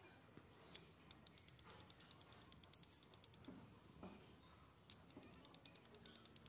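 Faint, rapid ticking of a pencil tip tapping dots onto paper, about ten taps a second, in two runs separated by a pause of a couple of seconds.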